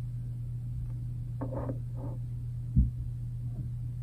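Steady low electrical hum, with faint handling sounds and a single dull thump about three seconds in as a tarot card deck is picked up from the desk.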